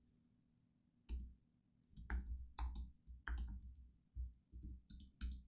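Typing on a computer keyboard: irregular runs of sharp key clicks with dull thuds, starting about a second in after a short quiet stretch.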